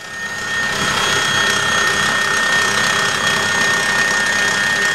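Stand mixer's electric motor driving a pasta roller attachment as a sheet of dough is fed through the rollers: a steady motor whine with a high held tone, building up over the first second.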